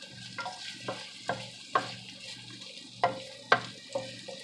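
Wooden spatula stirring chopped garlic frying in oil in a pan: a series of sharp knocks and scrapes against the pan over a light sizzle.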